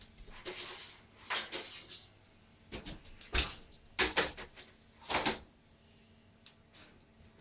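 A metal baking sheet of cookies being taken out of the oven and set down on the gas stove's grates: a few scrapes, then several sharp clanks of metal on metal between about three and a half and five seconds in.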